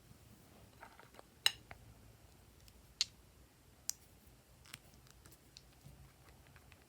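Glossy slime being handled and mixed, giving off sharp sticky clicks and small pops: four louder clicks spaced about a second apart, with fainter ones between.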